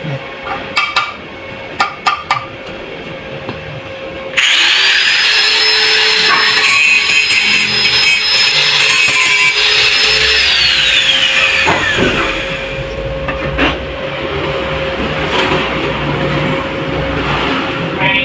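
Angle grinder switched on about four seconds in, grinding the steel body of a motorcycle exhaust muffler with a steady high whine for about six seconds, then switched off, its whine falling in pitch as the disc spins down. A few sharp clicks come before it starts.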